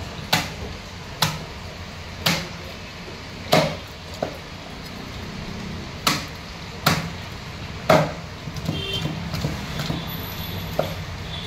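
Heavy curved knife chopping a snakehead fish on a wooden log chopping block: about seven sharp chops roughly a second apart, with a pause of about two seconds in the middle and a few lighter taps near the end.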